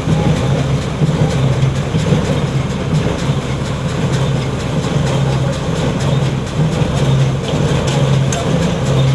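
Kartar knotter machine running steadily under load, a loud mechanical clatter with a low hum that swells and fades about every second.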